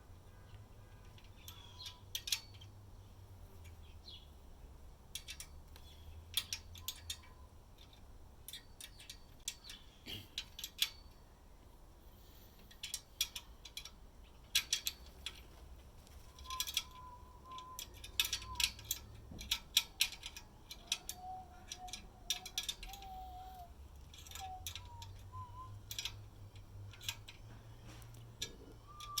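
Irregular small clicks and clatters of hand tools and furniture hardware being worked during flat-pack assembly, with a few faint wavering tones partway through.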